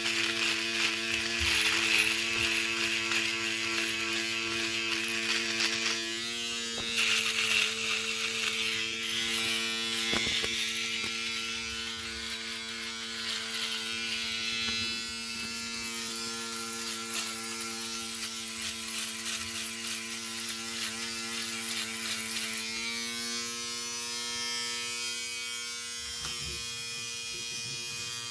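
Electric shaver running: a steady buzzing hum with a higher rasping hiss over it, which changes about six seconds in and again about twenty-three seconds in.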